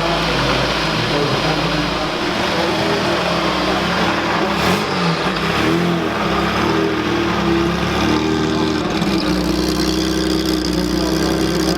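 Classic car's engine running at low speed, its pitch rising and falling briefly about halfway through.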